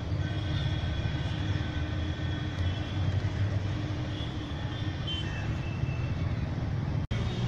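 Steady low rumble of a moving vehicle's engine and road noise, heard from inside the vehicle. The sound cuts out for an instant near the end.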